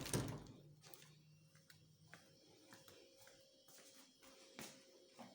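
A single thud right at the start, then near silence with a few faint, irregular clicks and a faint steady hum.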